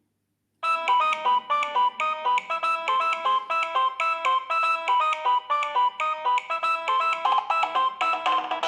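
Nokia 6030 mobile phone playing one of its built-in ringtones. A quick melody of short electronic notes, several sounding at once, starts about half a second in after silence.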